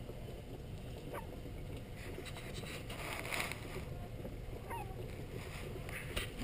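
Hiccups: several short, sharp catches about every one and a half to two seconds, over a steady low rumble.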